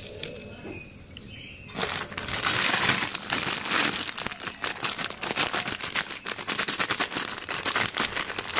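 A thin plastic bag around a loaf of sliced bread crinkling and rustling continuously as it is handled and opened, starting about two seconds in after a quieter start.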